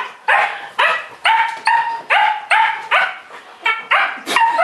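Dog barking in play with high-pitched yaps, about two a second.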